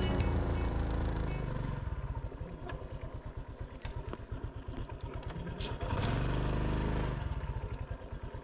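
Motorcycle engine running at low revs as the bike rolls slowly, with a steady low putter. About six seconds in, a short opening of the throttle raises the engine note for about a second, then it drops back to the putter.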